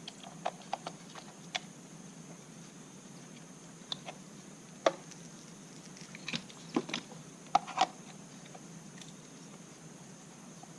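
Irregular clicks and knocks of small plastic parts being handled and fitted: adapter pieces of an Echo Speed Feed trimmer head being tried on a trimmer, the loudest knocks about five seconds in and near eight seconds, over a faint steady hum.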